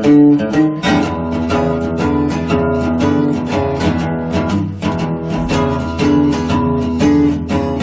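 Background music: plucked acoustic guitar playing a steady, even run of notes.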